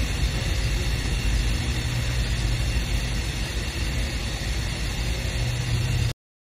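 Steady low rumble with an even hiss over it, cutting off abruptly about six seconds in.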